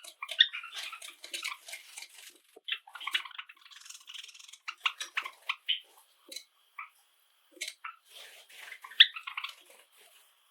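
Pet Java sparrows chirping, with runs of quick clicking, twittering notes typical of their song. The calls come in bursts separated by short pauses, the loudest burst about nine seconds in.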